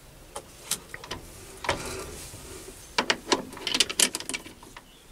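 Metal clicks and scrapes of a billet being set into a mini lathe's chuck and the jaws closed on it with a chuck key, with a quick run of sharp clicks about three to four seconds in.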